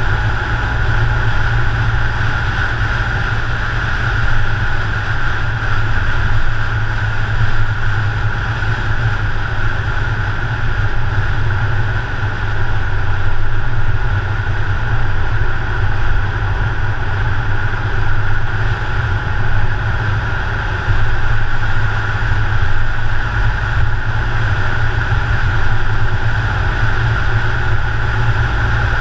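Steady road noise of a car driving at speed: a low rumble of wind and engine with a hiss of tyres on asphalt, heard from a camera mounted on the outside of the car.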